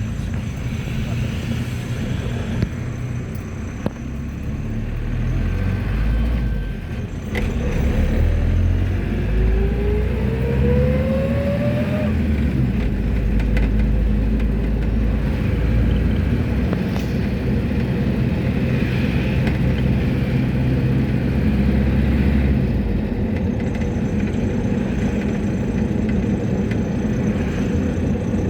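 Mercedes-Benz T1 minibus running on the road, heard from inside the cabin: a steady low engine and road rumble, with a whine that rises in pitch for several seconds partway through as it gathers speed, then cuts off.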